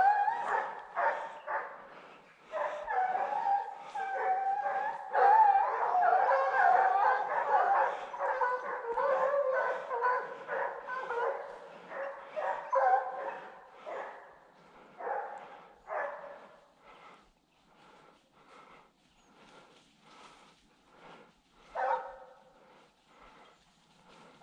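A pack of scent hounds baying on a wild boar's trail, many voices overlapping for the first dozen seconds, then thinning to scattered single bays.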